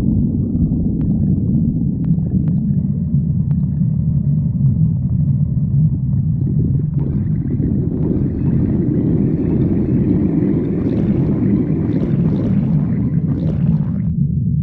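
A hungry person's stomach growling, picked up close to the belly: a steady low rumble, joined about halfway through by a higher, rougher gurgling growl that stops abruptly near the end.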